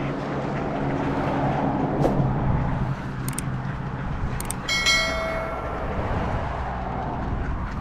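A steady low engine rumble, like passing traffic or a vehicle idling. There are a few sharp clicks, and about five seconds in a short high-pitched tone sounds for under a second.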